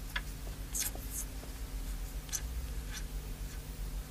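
Pen scratching on a sheet of paper in a few short strokes, over a low steady hum.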